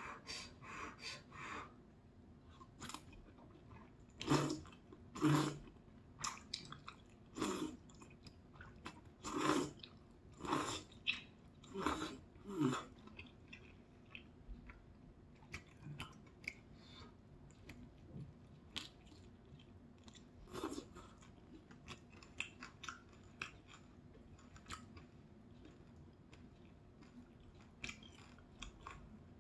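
Close-miked eating of thick udon noodles in kimchi broth: a run of loud slurps and chews in the first half, then quieter chewing with small clicks of chopsticks against the bowl.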